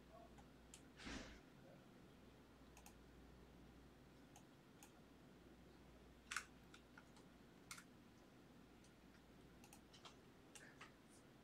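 Near silence with sparse, faint computer keyboard and mouse clicks. The sharpest click comes about six seconds in, and there is a short rustle about a second in.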